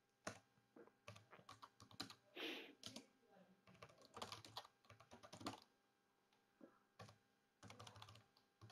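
Quiet computer keyboard typing: quick, irregular keystrokes as a terminal command is entered, with a pause of about a second roughly six seconds in.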